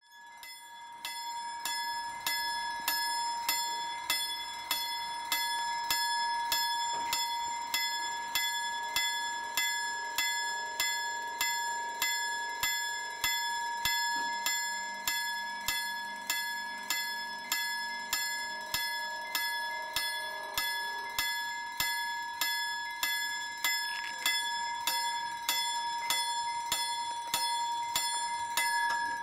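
Level-crossing warning bell ringing steadily, about two strikes a second, each strike ringing on: the signal that the crossing is closed and a train is approaching.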